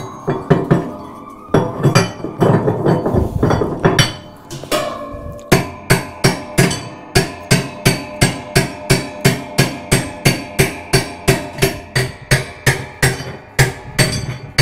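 Hammer tapping a flat bar wrench on the washer's hub nut to drive it tight. It starts as irregular knocks and scraping, then about five seconds in settles into steady metallic strikes, about three a second, each with a short ring.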